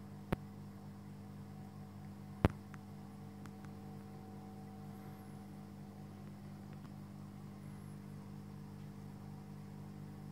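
Steady low electrical hum of aquarium equipment such as a filter or air pump. Two sharp clicks come about half a second and two and a half seconds in, followed by a few faint ticks.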